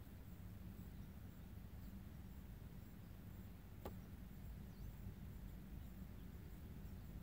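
Quiet outdoor background with a steady low rumble, broken by a single sharp tap about four seconds in.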